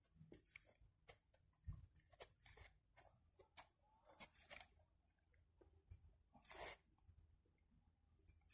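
Near silence with faint, irregular small clicks and rustles, one slightly longer rustle about six and a half seconds in.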